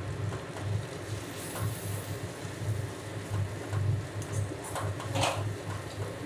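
A flat metal spatula stirring and scraping a thick masala of fried onion, tomato and ground spices around a metal kadai, with a few clearer scrapes against the pan about four to five seconds in. A low steady hum runs underneath.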